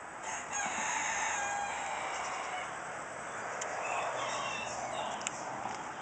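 A rooster crowing: one drawn-out crow of about two seconds starting just after the start, followed by a weaker call in the middle. A sharp click comes about five seconds in.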